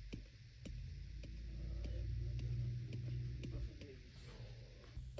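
Faint regular ticking, about two ticks a second, over a steady low hum, with faint voices in the background through the middle.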